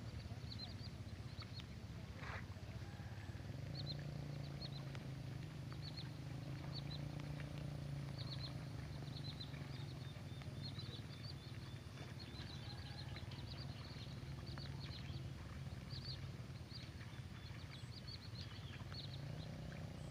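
Outdoor ambience of many short, high chirps from small animals calling throughout, over a steady low hum.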